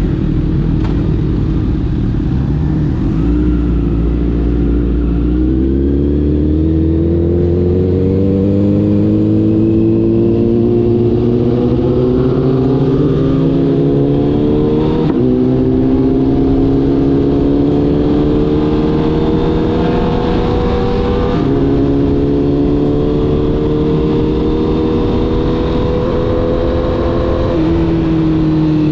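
Honda CBR1000RR's inline-four through an Arrow exhaust, accelerating hard through the gears. The engine note climbs steadily in pitch and drops sharply at three upshifts: about halfway through, about three quarters through, and near the end. Each time it climbs again.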